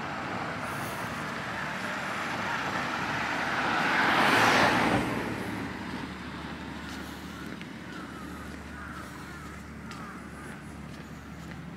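A car passing close by, its noise swelling to a peak about four and a half seconds in and then falling away quickly. Street ambience follows.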